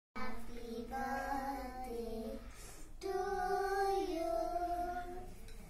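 Children singing in two long phrases of held notes, with a short break between them.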